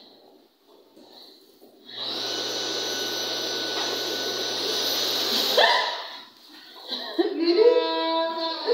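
An electric hand dryer blows steadily with a motor hum and a high whine, starting about two seconds in and cutting off after about three and a half seconds. Near the end a woman sings a few held notes.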